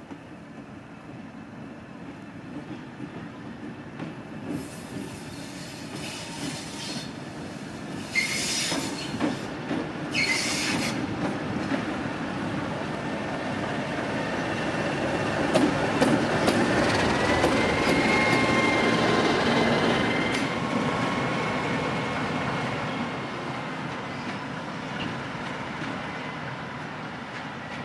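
A TEM2 diesel-electric shunting locomotive passes hauling a train of wagons. Its engine rumble and the clatter of wheels on the rails build up, are loudest about 16 to 20 seconds in, then ease off as it draws away. There are two short hisses about 8 and 10 seconds in, and a steady high wheel squeal from about 16 to 24 seconds in.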